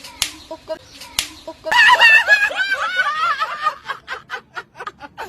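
Two sharp smacks, then a very high-pitched, squeaky laugh that wavers up and down and breaks into quick repeated pulses near the end.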